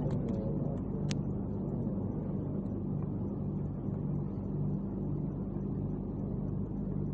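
Steady low hum with a faint rumble underneath: the room tone of a mosque's sound system during a silent part of the prayer, with one faint click about a second in.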